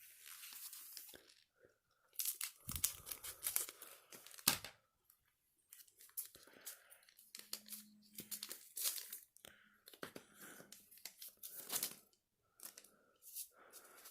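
Foil Pokémon TCG booster pack wrapper being torn open and crinkled: a run of crackling rips, loudest a couple of seconds in, with a short knock about four and a half seconds in.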